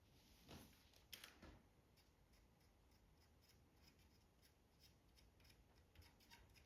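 Faint hand-work noises: two short scrapes near the start, then a run of small, sharp clicks and snips like small cutting tools at work.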